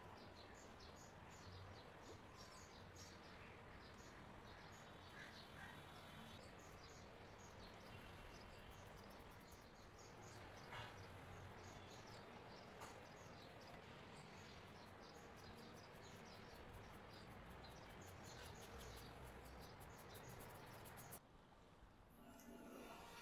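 Near silence: faint scratchy taps of a fan brush dabbing acrylic paint onto paper, over a quiet background with a few faint chirps. The sound drops lower near the end.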